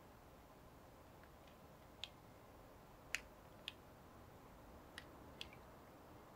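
Near silence: a faint steady hiss with five short, sharp clicks scattered through it, the loudest about three seconds in.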